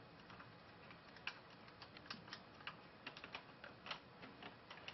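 Faint, irregular light clicks and taps of small metal parts being handled: T27 Torx screws and the muffler being fitted to a Stihl HS80 hedge trimmer engine, with the louder clicks about a second in and near four seconds.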